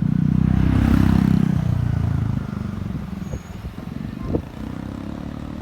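Keikyu electric commuter train passing close by, its wheels rumbling on the rails. The rumble fades after about two and a half seconds as the train moves away, leaving a few light clicks.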